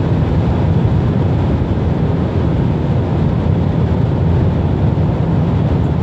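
Steady road noise inside a car's cabin at motorway speed: a low, even rumble of tyres and engine.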